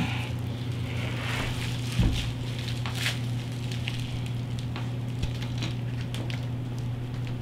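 Crinkling and rustling of bubble wrap and cloth wrapped around a motorcycle handlebar as it is handled, with scattered small clicks and one knock about two seconds in. A steady low hum runs underneath.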